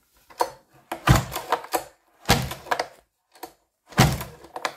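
STIHL MS311 chainsaw's recoil starter pulled several times in quick succession, three of the pulls strong, with the decompression valve closed: the cord rattles out and the engine turns over against full compression. It does not start.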